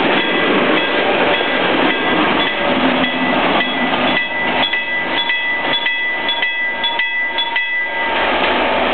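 Loaded freight wagons rolling past, their wheels clicking over rail joints about three times a second in the second half, under a high steady squeal that stops near the end.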